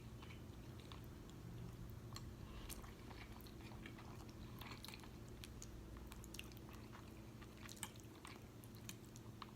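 Faint close-miked chewing of smothered turkey wings, with scattered small wet mouth clicks over a steady low hum.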